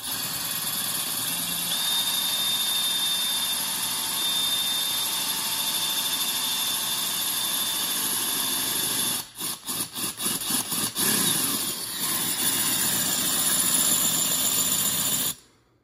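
DeWalt 20V cordless drill running steadily with a glass-and-tile bit grinding into the ceramic wall of a tequila bottle. About nine seconds in the drill stops and restarts several times in quick succession, then runs on and cuts off suddenly near the end, when the bit has poked through the ceramic.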